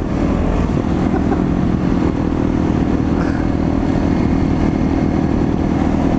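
Suzuki DR650 supermoto's single-cylinder engine running steadily at highway cruising speed.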